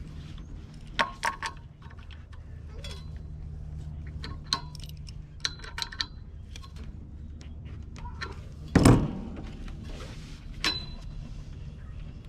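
Metal tools and parts clinking and clattering as they are handled, with one loud thud about nine seconds in, over a steady low hum.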